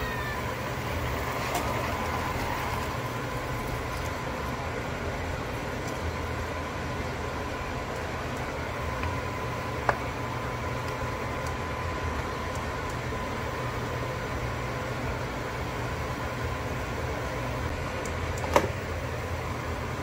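Induction cooktop running with a steady hum and a faint high whine under a pot of cooking soup. A single sharp click about halfway, and a clink near the end as a glass lid is set on the stainless steel pot.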